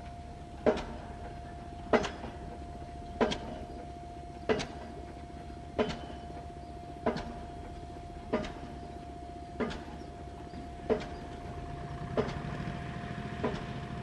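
Pile-driving hammer striking in a steady rhythm, one blow about every 1.3 seconds, each with a short ring, over a steady machine hum with a constant whine. A deeper engine hum grows louder near the end.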